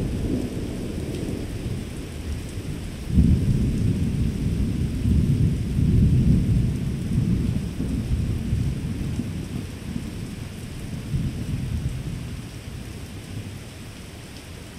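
Thunder rolling: a low rumble dying down, then a new peal breaks in sharply about three seconds in, rumbles on for several seconds and slowly fades. A steady hiss of rain runs underneath.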